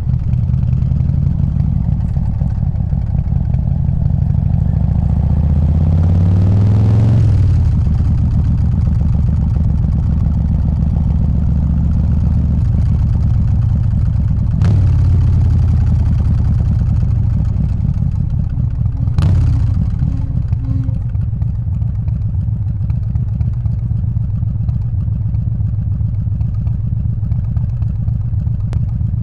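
Harley-Davidson Softail's 124 cubic inch S&S Evo air-cooled V-twin running through straight pipes; it revs up, rising in pitch about five to seven seconds in, then settles. Two sharp clacks come about halfway through, and the engine runs steadily and a little quieter in the second half.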